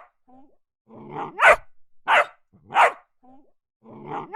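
Dog barking: a short low grumble about a second in, then three loud barks about two-thirds of a second apart, with another growling lead-in starting near the end.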